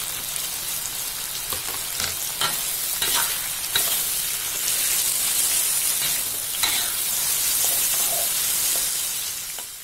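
Green beans, petai and tomato sizzling in oil in a wok as a metal spatula stirs and tosses them, with scattered clicks and scrapes of the spatula against the pan. The sizzle fades out near the end.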